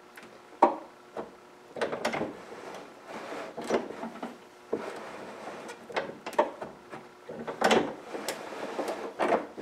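Window winder handle being turned on a Triumph Spitfire door, the window regulator mechanism inside the steel door giving irregular clicks, clunks and scrapes, with a louder run of knocks near the end.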